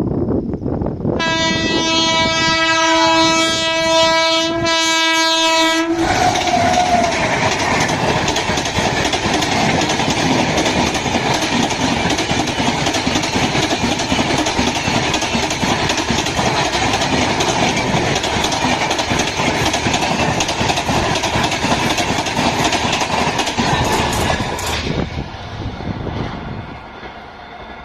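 WAP-7 electric locomotive's horn sounding one long, steady blast with a few brief breaks for about five seconds. The train then passes with loud, continuous wheel-on-rail noise, which drops away near the end.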